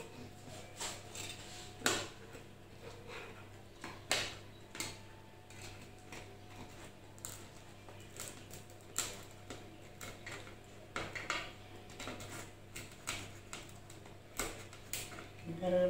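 Kitchen knife and metal slotted spatula scraping and clicking against a baking tray while cutting through a pizza, in irregular clicks and scrapes; the two sharpest come about two and four seconds in. A low steady hum runs underneath.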